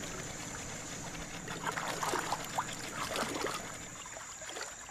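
Water trickling and lapping around a small boat, with several short calls in the middle and a steady high whine underneath.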